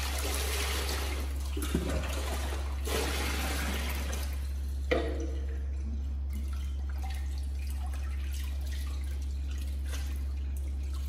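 Water poured from a small plastic bowl into a plastic basin, rushing and splashing in two pours over about the first four seconds, then quieter splashing and dripping as a baby monkey is washed by hand in the water. A steady low hum runs underneath.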